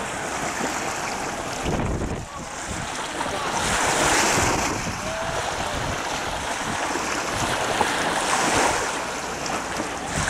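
Choppy water lapping and washing against the shore in steady waves, swelling louder about four and eight seconds in, with gusty wind buffeting the microphone.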